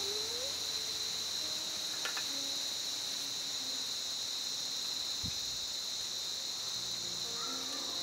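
Steady, high-pitched chorus of insects droning without a break, with a light click about two seconds in and a short dull thump a little past the middle.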